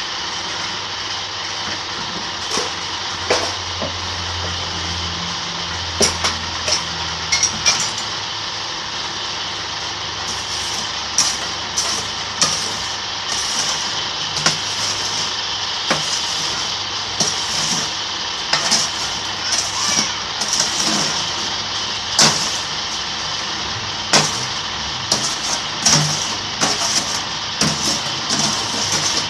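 Electric concrete-block press running: a steady electric-motor hum and whir, with many sharp, irregular metal clanks and knocks that come more often from about ten seconds in.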